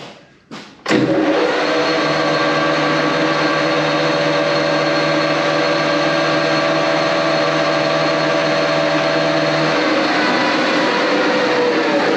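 Metal lathe switching on about a second in, after a few light knocks, and running steadily with its four-jaw chuck spinning a steel shaft. The motor and drive make a loud, even machine sound with several constant tones.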